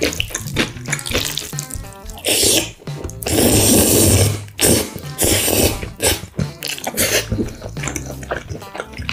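Close-miked slurping of black bean noodles, in several long wet slurps; the longest and loudest runs from about three to four and a half seconds in. Background music with a steady beat plays under it.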